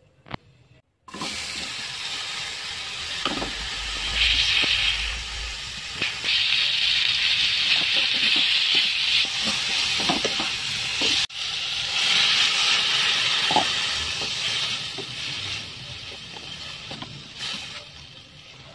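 Sliced vegetables and tomato sizzling loudly in hot oil in a wok, starting suddenly about a second in as they go into the pan. Occasional knocks against the pan cut through the sizzle, which dies down near the end.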